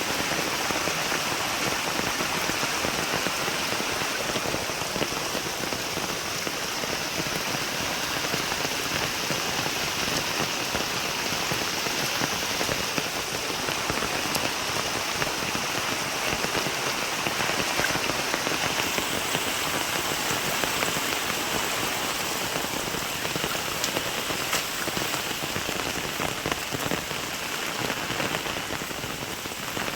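Steady rain falling and pattering on surfaces, a dense even hiss of drops with no let-up.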